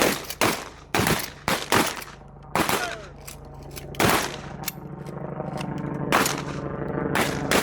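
Shotguns firing on a range line, about ten shots from several shooters, several close together in the first three seconds, then a few spaced further apart.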